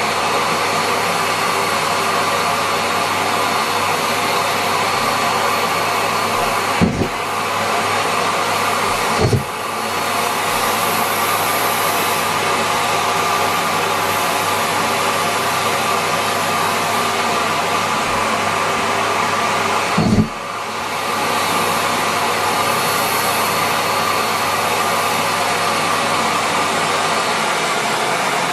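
Miele Complete C3 canister vacuum cleaner running steadily at full suction. Three brief jolts in the sound, about 7, 9 and 20 seconds in, each followed by a short dip.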